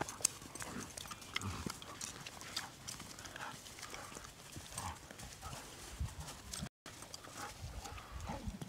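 Dogs romping together in snow: scattered crunches and scuffles of paws on snow, with a few short low sounds from the play.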